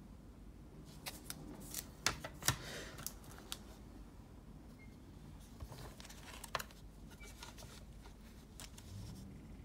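Hard plastic graded-card slabs clicking and clacking as they are handled, set down and picked up from a stack. There is a quick cluster of sharp clicks in the first few seconds and a couple more later on.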